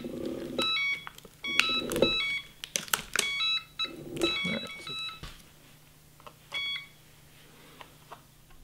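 Sharper Image SOGO hoverboard beeping: short multi-tone electronic chirps in clusters, about half a dozen times over the first seven seconds, as its foot pads are pressed down. Dull thumps of the board being pushed on the table come with several of the beeps.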